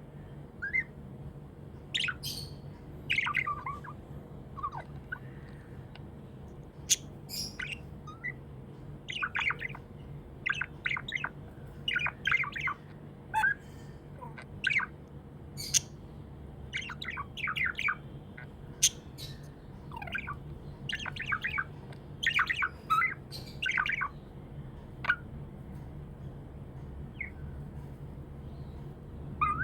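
Budgerigar chirping and squawking in quick, irregular clusters of short calls, with brief lulls between them. A steady low hum runs underneath.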